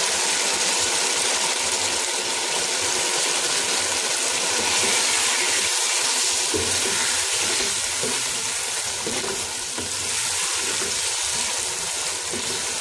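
Boneless chicken in a tomato-and-yogurt masala sizzling in a pot, a steady frying hiss, as a spatula stirs the just-added yogurt into the gravy. The yogurt is cooking down into the masala.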